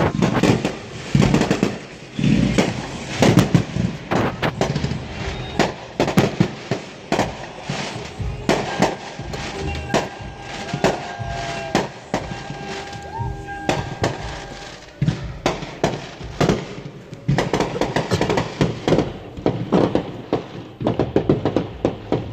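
Aerial fireworks display: a rapid, continuous run of shell bursts, bangs and crackles.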